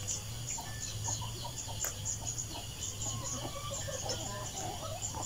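Chickens clucking off and on, over a steady, even chirping of insects and a low hum.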